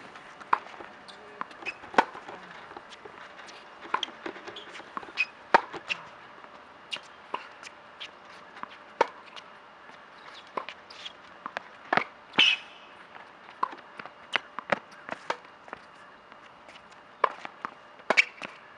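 Tennis balls being struck by racquets and bouncing on a hard court during a rally: a run of sharp pops at irregular spacing, some loud, some faint.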